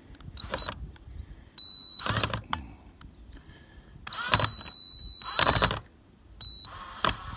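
Cordless drill/driver whining in several start-stop bursts, the longest about a second and a half, as it drives long number two Phillips screws through a plastic refrigerator roof vent cover. There are a few sharp knocks, and a run of clicks near the end.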